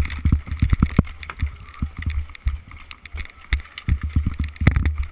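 Irregular thumping of ski-boot footsteps tramping up through snow, jolting a body-worn GoPro, several knocks a second.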